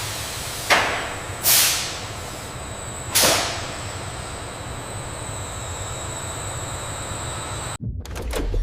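Industrial machinery running with a steady hum and a faint high whine, broken by three short pneumatic hisses of released air in the first few seconds. Near the end the hum cuts off abruptly and a few clicks follow.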